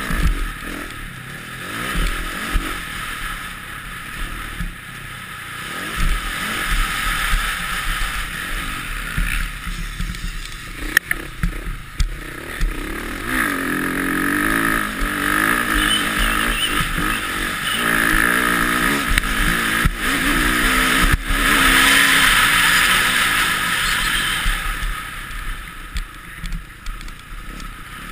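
Motocross bike engine running hard through a race lap, heard through an onboard camera with wind rush, swelling louder through the middle and easing off near the end. A few sharp knocks stand out along the way.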